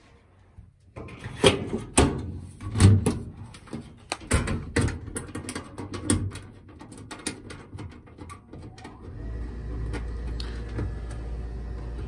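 Sheet-metal furnace cabinet panels and thumbscrews being handled: a run of sharp knocks, clunks and rattles over the first several seconds, then a steady low hum sets in later on.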